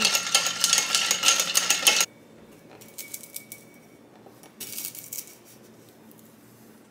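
A spoon stirring ice cubes in a glass pitcher of cocktail, a fast run of clinking and rattling that stops abruptly about two seconds in. After that only quiet handling noise, with a short gritty scrape about five seconds in.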